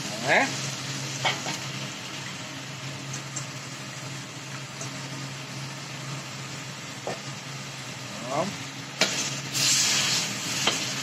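Beef pieces dropped into spice paste frying in oil in a steel wok, sizzling steadily, with a metal spatula scraping and knocking against the wok as the meat is stirred. Louder scraping comes near the end, over a low steady hum. The paste has fried until its oil has separated.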